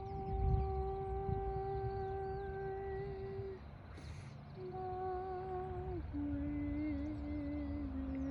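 A long, steady humming drone in held notes. Each note lasts a few seconds before stepping to a new pitch, the later ones slightly wavering and lower, over a low rumble.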